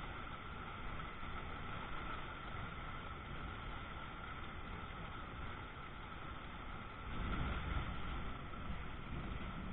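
Heavy rain pouring down in a steady hiss. About seven seconds in, a low rumble swells briefly.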